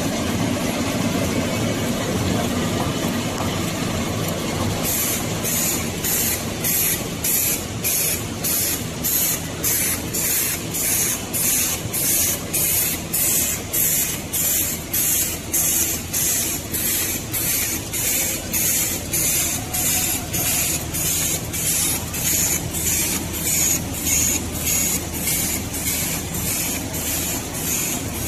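Automatic cutlery feeding and flow-pack packaging machine running: a steady mechanical hum, joined about five seconds in by short hissing bursts that repeat evenly, about two a second, in time with the machine's cycle.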